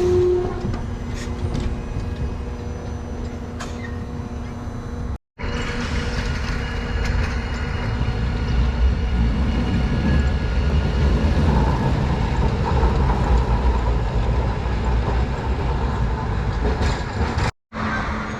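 Hakodate city streetcar running on its rails: a steady low rumble of wheels and motor that swells for a while in the middle. The sound cuts out briefly twice.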